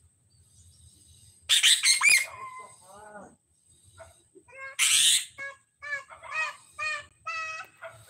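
Long-tailed shrike (pentet) singing in full voice. It gives two loud harsh chattering bursts, about a second and a half and five seconds in, then a run of short whistled notes, about two a second.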